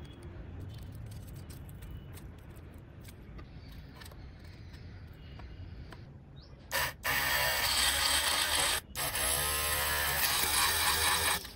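Handheld mini drill made from a small DC motor with a collet chuck, running and drilling into a thin wooden strip: a short burst, then two longer runs with a brief stop between them. Before it, soft handling taps and clicks.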